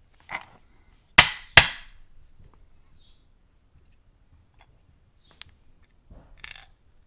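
Two sharp clicks a little over a second in, then a single light tick and a short patter of clicks near the end: steel tweezers and small lock pins handled against the Abus Bravus 4000's lock cylinder and a wooden pin tray.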